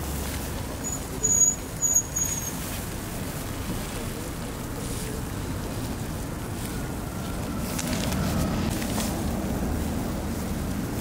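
Snowy city street at night: steady low traffic rumble, with a car coming closer and louder over the last few seconds. About a second and a half in there are three short, high-pitched beeps.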